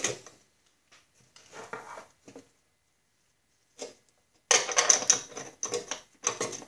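Small metal parts clinking and rattling as they are handled: a few faint clicks in the first half, then a louder spell of clattering from about four and a half seconds in.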